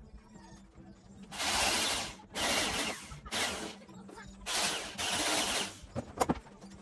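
A hand drill run in four short bursts, each under a second, boring into the car's sheet-steel rear body panel. A few sharp knocks come near the end.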